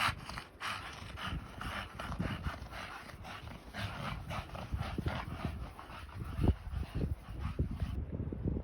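American bully dog panting hard in quick, rhythmic breaths, about three a second, with occasional low thumps.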